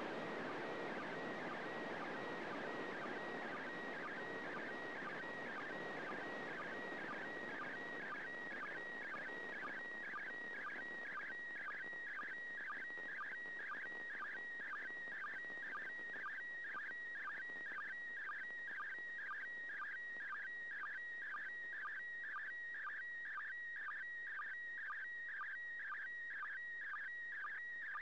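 Slow-scan television signal from the International Space Station heard through an FM receiver on 145.800 MHz. A steady high tone is broken by a short lower blip about twice a second, the line-sync rhythm of the PD120 picture mode. Radio hiss underneath fades away over the first ten seconds or so.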